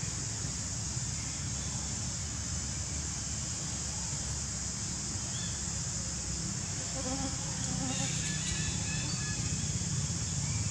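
Steady high-pitched insect chorus over a low rumble of wind. Faint short tonal sounds join in over the last few seconds.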